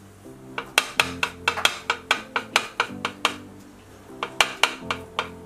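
Background music: sustained low instrumental notes under quick, sharp percussive strikes that come in two bursts, a long run in the first half and a shorter one near the end.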